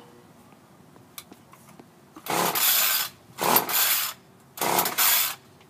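Gas string trimmer being pull-started: three pulls of the recoil starter cord, each a short rasping whir of the engine turning over without catching, about a second apart.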